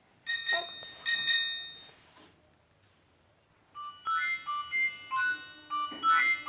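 Nokia mobile phone ringtones: two bright chiming chords in the first two seconds, a short pause, then a quick melody of short high-pitched notes starting about four seconds in.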